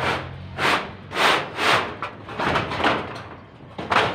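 Corrugated galvanised roofing sheets clattering and scraping against each other in about seven irregular bursts as a new sheet is shifted into place on a metal roof.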